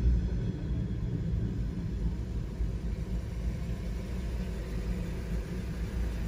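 Low, steady rumble of an idling car heard from inside the cabin. At the very start it is joined by the last of a passing freight train's noise dying away.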